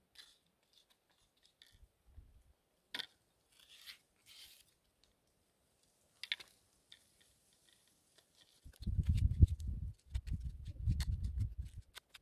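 Small knife cutting a long green pepper: a few crisp snaps and scrapes as it is slit and trimmed, then, about two-thirds in, a fast run of chopping strokes against a wooden cutting board as it is diced.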